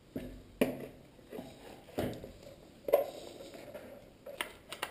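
Knocks and clatter from a plastic fuse box being handled and pushed into place against a motorcycle frame: about six sharp knocks at uneven intervals, with rustling handling noise between them.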